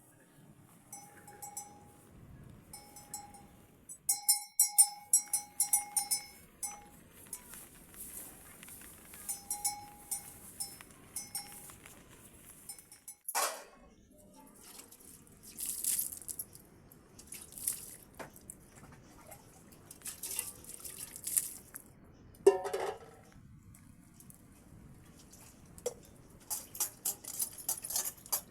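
A small metal bell clanking in short, irregular jangles through the first half, then scattered high metallic clinks, with two brief sharp sweeping sounds in between.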